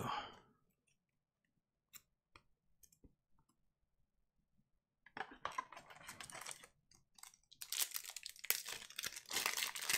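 Foil wrapper of a Panini Prizm Premier League trading-card pack crinkling as it is pulled from the box and torn open. The crinkling starts about halfway through and gets louder near the end, after a few faint clicks.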